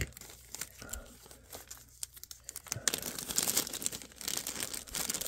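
Crinkling and rustling of a small bag of rivets being handled and opened, with scattered small clicks. The crinkling grows busier from about three seconds in.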